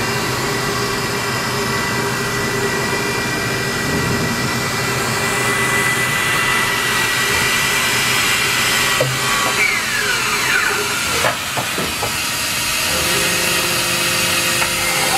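1992 Hamai EM-3 vertical machining center running a program with no workpiece on the table: a steady whine from its spindle and axis drives over a hiss. About two thirds of the way through, several whines glide in pitch as the head moves, then the machine settles on a new, lower steady whine.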